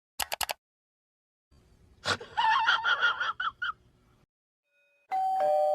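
A string of sound effects: three quick clicks, then a sharp hit followed by a rapid run of short pitched chattering notes. Near the end comes a two-tone ding-dong doorbell chime, a higher note then a lower one, ringing on and slowly fading.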